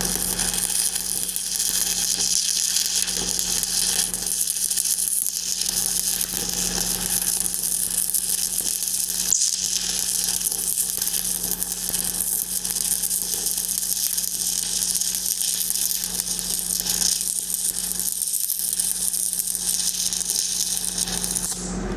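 Stick-welding arc crackling and sizzling steadily as a 3/16-inch E8010 pipeliner rod runs a downhill hot pass on pipe, with a steady low hum underneath. The arc cuts off just before the end as the rod is burned down.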